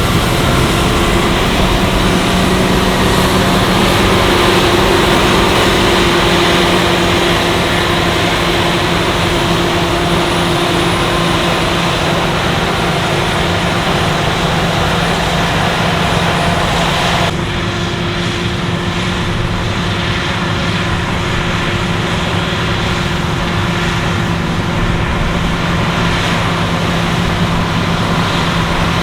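Claas Lexion 770TT combine harvester running steadily while harvesting: a constant machine drone with a steady hum. About 17 seconds in, the sound changes abruptly as the upper hiss drops away.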